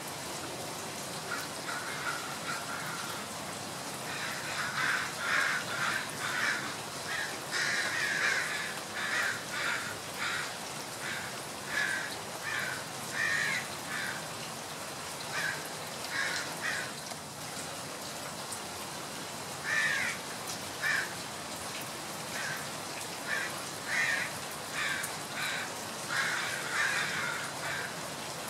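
Repeated short, harsh bird calls in bouts, with pauses between them, over a steady hiss.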